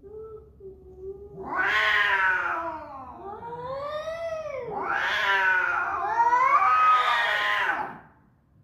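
A drawn-out, wavering animal wail that slides up and down in pitch. It swells loudest about two seconds in and again near the end, then stops.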